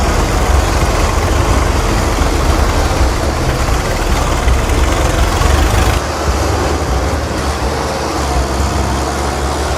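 Steady, loud rumbling noise like a running motor vehicle, with no clear engine pitch; the sound changes abruptly about six seconds in, with less deep rumble after.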